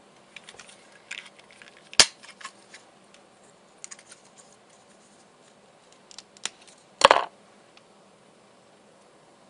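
Small clicks and taps of the airbrush hose and fittings being handled, with one sharp click about two seconds in and a short noisy burst about seven seconds in.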